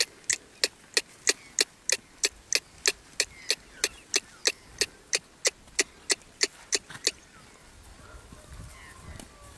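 A horse trotting, a sharp click on each beat of the trot, about three a second and very even; the clicks stop suddenly about seven seconds in, leaving a faint background with a few faint high chirps.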